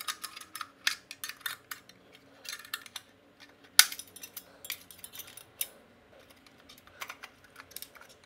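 Small metal clicks and scrapes of a hex key prying a spring clip out of a chrome headlight retaining ring, with one sharp click about four seconds in.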